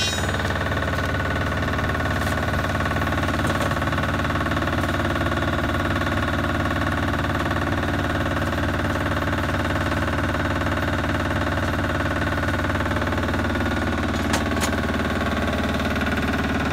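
An engine running steadily at a constant speed, a level unchanging drone. There is one brief click about fourteen seconds in.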